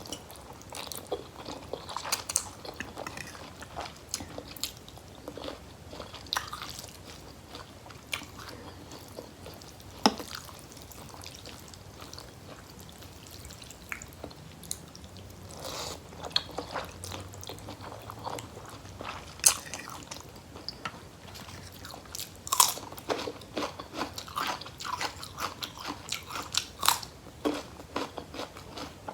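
Close-miked eating sounds: chewing mouthfuls of rice noodles with beef curry. Scattered sharp clicks come from a spoon knocking against the rough, ridged bottom of the bowl.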